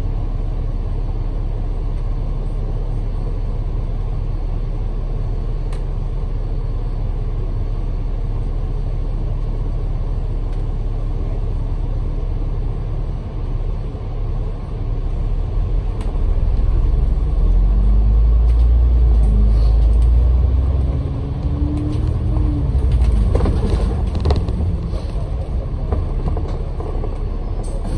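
Bus engine and road rumble heard on board a moving bus, steady and low. About two-thirds of the way through it grows louder and the engine note climbs several times, followed by a few short knocks or rattles.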